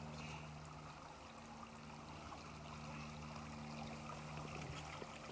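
Faint trickle of shallow water running in a nearly dry creek, with a faint steady low hum underneath.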